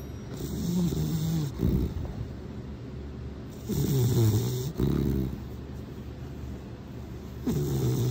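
A sleeping grey pit bull-type dog snoring: three snores of about a second each, roughly three and a half seconds apart, the last near the end.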